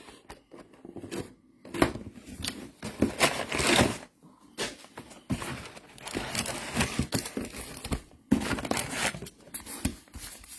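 Trading card pack wrappers being torn open and crinkled by hand, in irregular rustling bursts.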